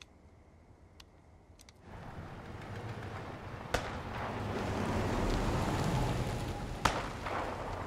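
A truck driving along a gravel road: engine rumble and tyre-on-gravel noise come in about two seconds in and grow louder as it approaches, easing slightly near the end. Two sharp cracks cut through it, one in the middle and one near the end.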